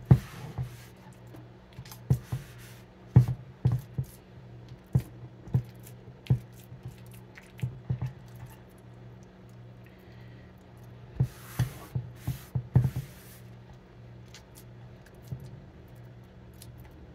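Wet seitan (wheat gluten) dough being stretched, pressed and slapped by hand on a wooden cutting board: irregular soft thumps and knocks, with a quick cluster of them and some rustling a little past halfway.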